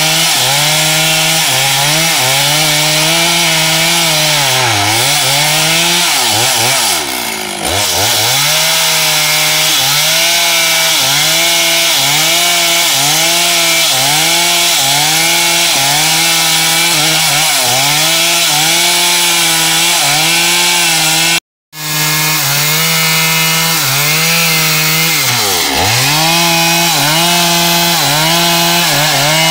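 Chainsaw cutting into teak wood, the engine pitch dipping and recovering about every second and a half as the chain bites under load, with a few deeper drops toward idle. The sound cuts out for a split second about three-quarters of the way through.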